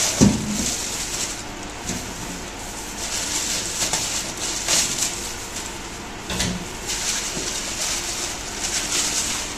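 Plastic bag around a slab of raw pork belly crinkling and rustling as it is handled and cut open. There are two dull knocks, one just after the start and one about six seconds in.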